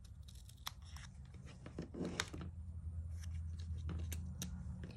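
Small scissors snipping through a die-cut cardstock circle in a few short crisp cuts, halving it, with light clicks of the card pieces being handled.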